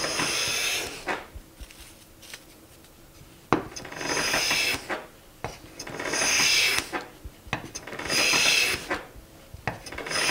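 Harbor Freight No 33 bench plane taking shavings along the face grain of a board: five push strokes about two seconds apart, each a second-long rasping swish, with a short knock as the plane sets down for several of them. The plane, its sole flattened and blade sharpened, is cutting cleanly and taking full shavings.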